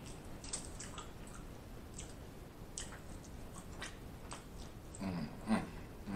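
Mouth sounds of eating boiled crawfish: soft chewing with small wet clicks and smacks, and a brief voice sound near the end.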